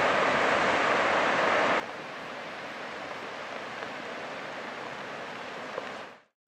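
Steady rushing noise over an iceberg-choked fjord. It is loud at first, cuts abruptly to a quieter, even rush about two seconds in, and fades out near the end.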